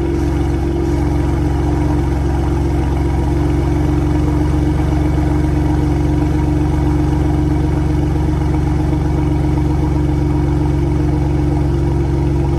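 Second-generation Ford Raptor's 3.5-litre twin-turbo V6 idling steadily through a Corsa exhaust on a cold start, a loud, even low drone from the tailpipes.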